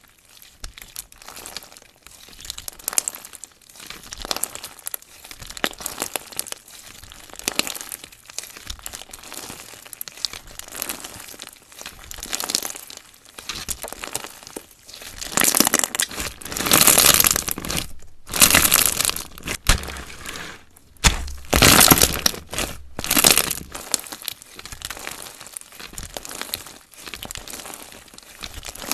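Slime being mixed and squished by hand, a dense run of crackling, popping clicks. There are several louder squelching stretches a little past the middle.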